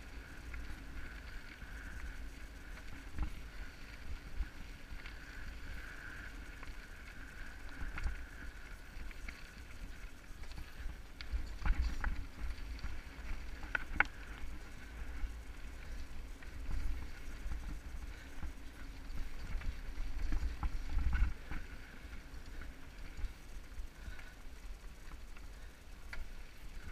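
Mountain bike riding over a rocky dirt singletrack: a steady low rumble of tyres on dirt and wind on the microphone, with scattered rattles and knocks as the bike jolts over rocks, the loudest bunched in the middle.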